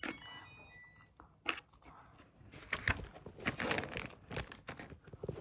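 Soft-plastic fishing bait packets crinkling and rustling as they are handled, with a dense run of small clicks and crackles through the second half.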